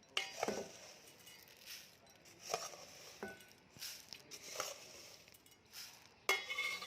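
Puffed rice being handled in a bowl: a series of short rustling scrapes, about one a second. Near the end comes a louder, ringing clink of a utensil against the dish.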